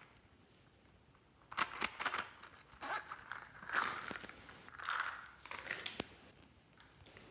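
Hands working glossy slime, giving several bursts of crackling and popping from about a second and a half in to about six seconds, with a few sharp clicks.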